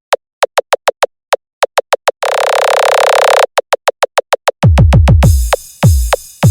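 Electronic battlemix music: a run of quick, sharply falling synth zaps, a held buzzing synth tone, then hard kick drums with deep falling bass hits from about two-thirds of the way in.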